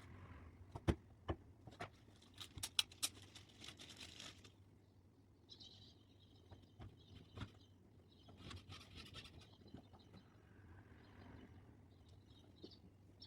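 Hand work on small plastic car trim parts: scattered sharp clicks and taps with bursts of scratchy rustling, including a quick run of clicks between about two and four seconds in.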